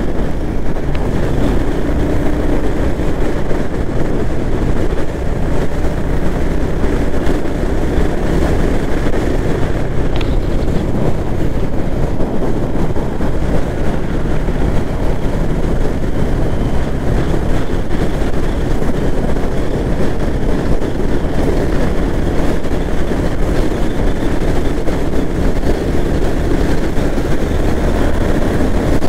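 Royal Enfield Hunter 350's single-cylinder engine running steadily at road speed, heard from the rider's seat together with the rush of wind on the microphone.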